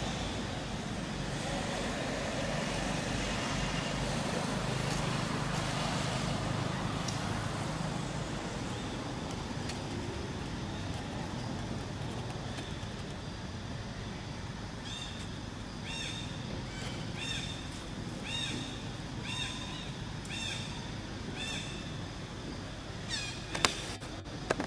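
Outdoor ambience with the steady noise of passing road traffic, swelling over the first several seconds. From about the middle come a run of short, high calls repeated roughly once a second. Near the end there are a couple of sharp, loud shrieks.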